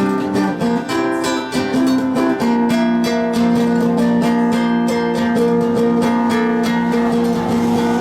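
Acoustic guitars strumming and picking an instrumental passage, with notes ringing out; from about two and a half seconds in, one low note is held steady.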